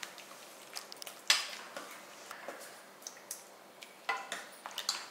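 A metal spoon clinking and scraping against the inside of a pressure cooker as thick chicken gravy is stirred, with one sharp clink about a second in and a quick run of clinks near the end.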